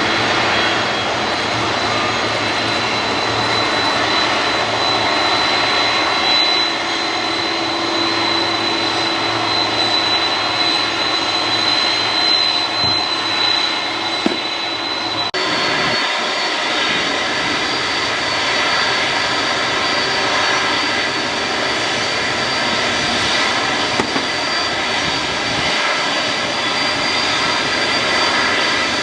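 Jet airliner engines running steadily, a loud roar with a high, steady whine. About halfway through the sound changes abruptly and the whine settles a little higher.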